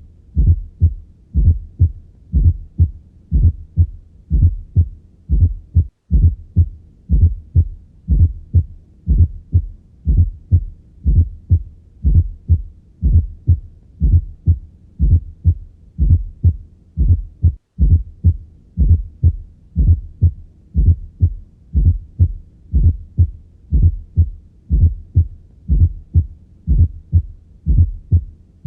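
Heart sounds heard through a stethoscope: a steady run of low thumping heartbeats, each with an added fourth heart sound (S4 gallop) just before the first sound. The sound cuts out briefly twice.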